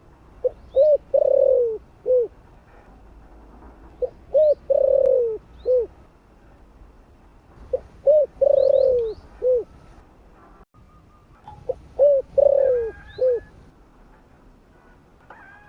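Spotted dove cooing: four repeated phrases about every four seconds, each a few short coos around one longer falling coo. Faint high chirps from small birds come between them.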